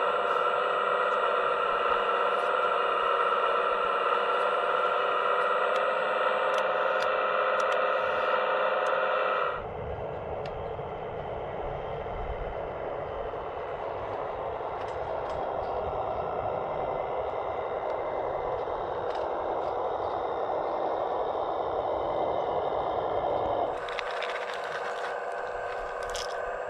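Radio-controlled Hitachi ZX135US model excavator's hydraulic pump whining steadily. About ten seconds in, the sound turns to a rougher whirring hiss with light clatter and scraping as the bucket works in broken asphalt rubble.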